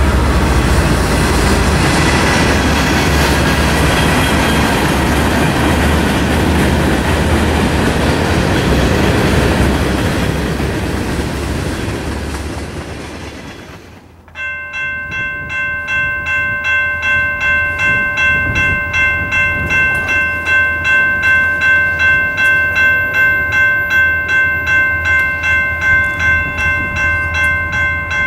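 Freight cars rolling past on the rails, the sound fading away over the first dozen seconds or so. Then a railroad grade-crossing bell rings at about two strokes a second, the crossing activated for an approaching train.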